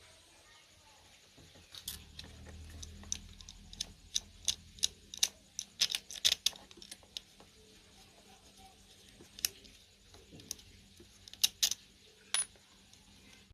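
Irregular sharp clicks and clinks of small metal parts and hand tools being handled while an old electric fan is worked on, thickest in the middle and again near the end. A low hum starts about two seconds in.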